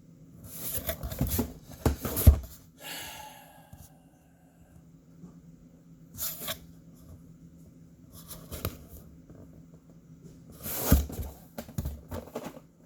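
Rustling and knocking of packaging being handled, in short bursts with quiet gaps between; the loudest burst comes in the first two seconds and another about eleven seconds in.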